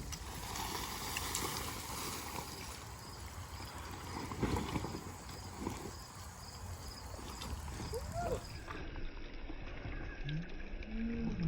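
Wet vinyl pool liner being shifted and flipped over, with water trickling and splashing and a few soft knocks.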